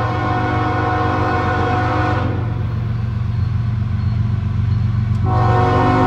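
Diesel freight locomotive's multi-chime air horn blowing for a grade crossing as the train approaches, growing louder. The horn breaks off about two seconds in and sounds again near the end, with a steady low engine rumble underneath.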